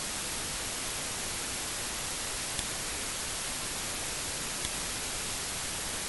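Steady hiss of recording noise with no other sound in it, broken only by two faint clicks about two and a half and four and a half seconds in.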